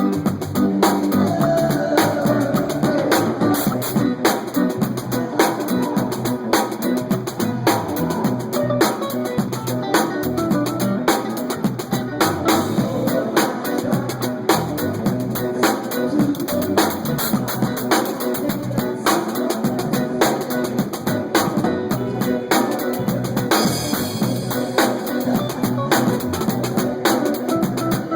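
Live band playing a dance-music song, with a drum kit keeping a steady beat of bass drum and snare or rim hits over guitar and other instruments.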